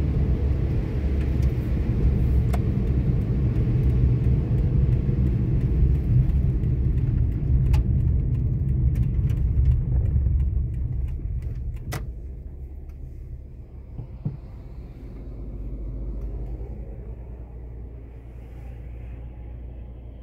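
Car interior road and engine rumble on a wet road, which dies down about halfway through as the car slows onto gravel, leaving a quieter low engine hum. A few sharp clicks come near the middle.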